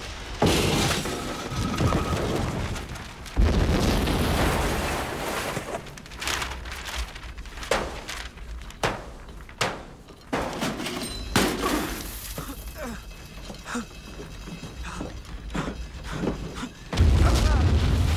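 Battle sound effects of a war film: heavy explosions booming about half a second in, at about three seconds, at about eleven seconds and again near the end, with many sharp cracks and shattering debris in between.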